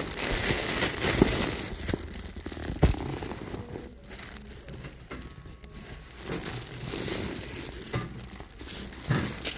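Crinkling and rustling with scattered small clicks, loudest in the first second or so.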